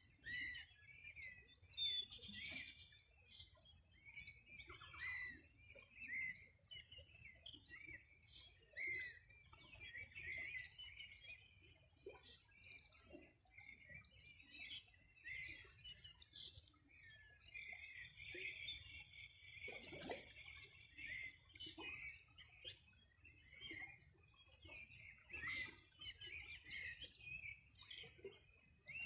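Several wild birds singing and chirping at once, faint: a steady mix of many short, high overlapping calls and trills with no pause.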